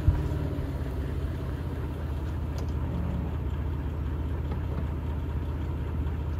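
Off-road vehicle's engine running steadily, a low drone, with one sharp knock right at the start.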